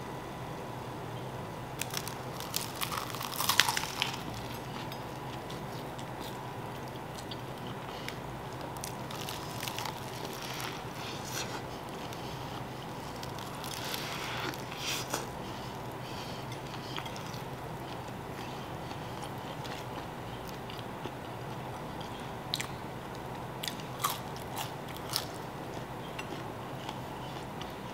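Eating a salmon burger: crunchy bites and chewing in short clusters, the loudest about three and a half seconds in, over a steady faint hum.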